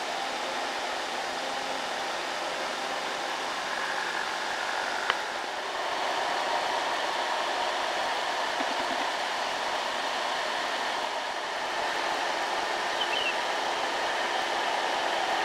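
Diesel cargo truck engines running steadily as loaded trucks climb an uphill road, a continuous drone. A single sharp click about five seconds in.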